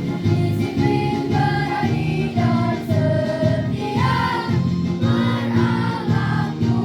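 Choir singing a march, several voice parts sounding together in held notes that change every half second or so.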